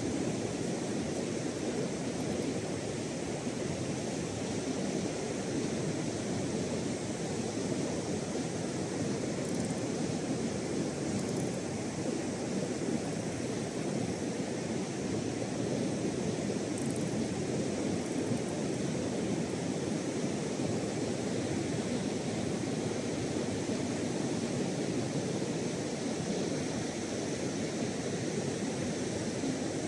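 Steady rush of surf breaking along a sandy beach.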